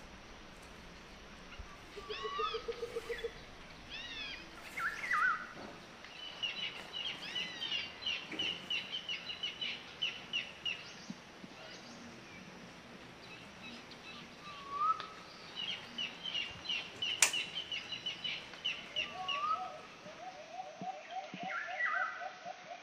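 Birds chirping and trilling: repeated short arched chirps and fast rapid trills, with a single sharp click about seventeen seconds in.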